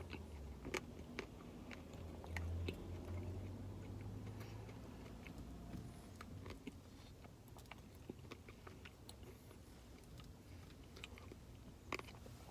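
A person eating a Blizzard (soft-serve ice cream with cookie dough and brownie pieces): faint chewing with many small scattered clicks, and a low hum in the first few seconds.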